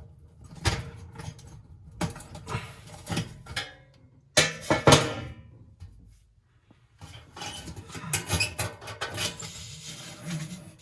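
Hand-tool and metal handling noises while the screw holding an oven temperature sensor is removed inside the oven: scattered knocks and clicks, the loudest clatter about four seconds in, then a run of dense scraping and clicking in the second half.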